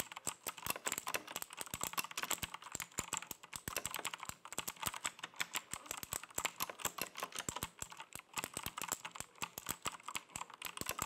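Rampage X Titan mechanical keyboard with blue switches being typed on fast and continuously, a dense run of sharp clicky keystrokes. The blue switches' click is loud, as blue switches typically are.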